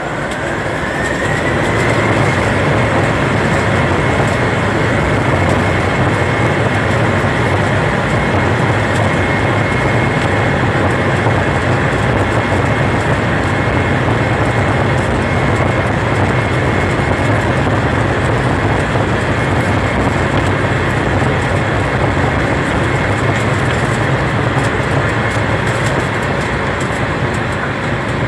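Airliner engines heard from inside the cabin, spooling up to takeoff power during the takeoff roll. A whine rises over the first two seconds and then holds steady above a loud, even rush of engine and runway noise.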